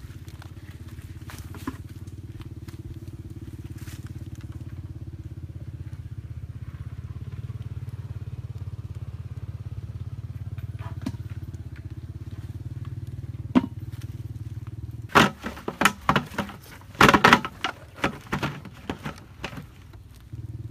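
A steady low motor hum with an even pulse runs until about three-quarters of the way through, then stops. A few seconds of loud knocks and crackles follow as the plastic bottle-and-pipe fish trap is handled.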